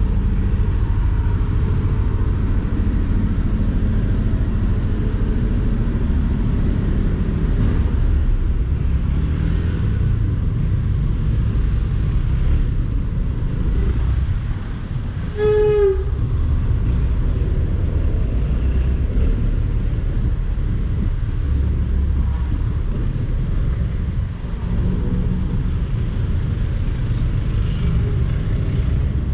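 Honda motorcycle engine running at low speed in heavy traffic, a steady low rumble mixed with the noise of the vehicles around it. About halfway through, a vehicle horn gives one short honk.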